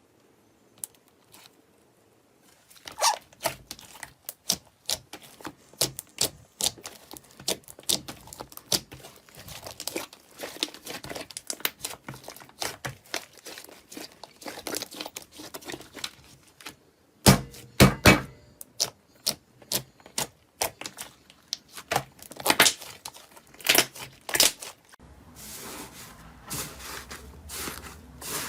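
Slime being pressed, squeezed and pulled apart by hand, giving dense runs of sharp crackling, popping and tearing clicks. The clicks start about three seconds in, are loudest in a cluster a little past halfway, and shift to a different texture near the end.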